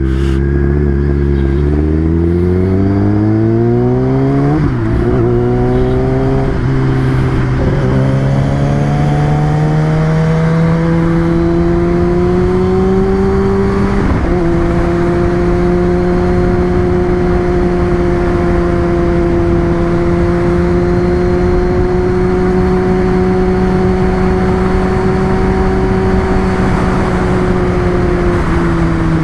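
Kawasaki ZX-10R's inline-four engine pulling up through the gears, its pitch rising and dropping back at each upshift, three or four shifts in all, then running at a steady cruising speed with wind rush, easing off slightly near the end.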